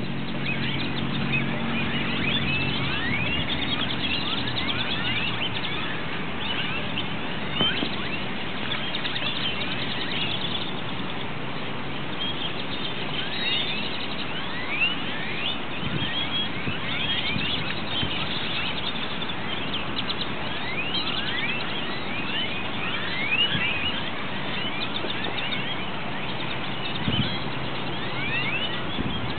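A large flock of purple martins gathering at a roost, giving a continuous chatter of many short overlapping chirps over a steady background noise. A low vehicle engine hum fades out in the first few seconds.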